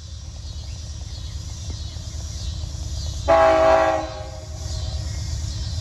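Union Pacific diesel locomotive sounding its air horn in one short chord blast, under a second long, about three seconds in, over the low rumble of the train, which grows steadily louder.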